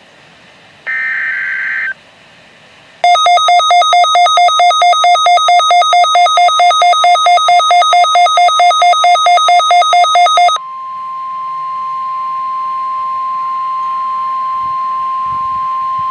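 NOAA Weather Radio alert signals: the last one-second buzzing burst of the SAME digital header, then a loud pulsing two-pitch electronic alarm at about four pulses a second for about seven seconds, then the steady single-pitch 1050 Hz warning alarm tone, which cuts off abruptly at the end. These tones are sent to switch on weather radios automatically; here they mark a required weekly test.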